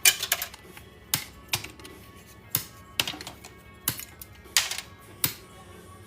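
Cutters snipping the plastic blades off a small cooling fan's hub, one sharp snap with each cut, about nine cuts spaced half a second to a second apart.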